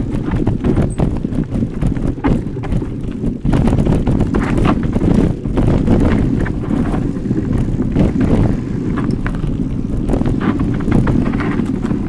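Specialized Turbo Kenevo SL electric mountain bike riding a forest dirt trail: a steady tyre rumble with frequent irregular knocks and rattles as it rolls over bumps, and wind on the microphone.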